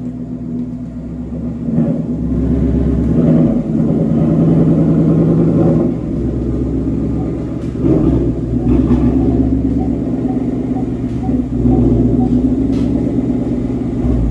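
2018 Ford Mustang GT's 5.0 L Coyote V8 running through an AWE Touring catback exhaust, the revs rising and easing off a few times.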